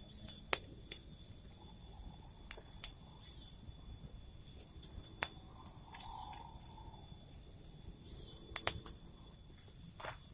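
A few sharp knocks and clicks at irregular intervals, about six in all, two of them close together near the end, over a faint steady high-pitched background tone.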